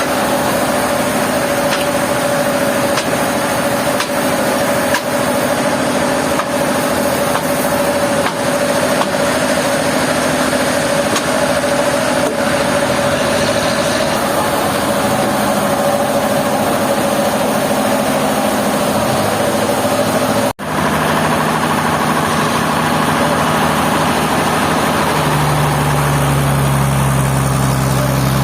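Steady running of heavy sawmill machinery, an engine-like hum with a steady mid-pitched tone. About two-thirds of the way through, the sound cuts out for an instant and gives way to a deeper hum that grows stronger near the end.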